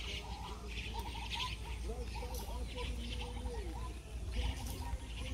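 Several birds calling over one another at dusk: short chirps and whistling calls that slide down in pitch, with repeated bursts of higher chatter. A low steady rumble runs underneath.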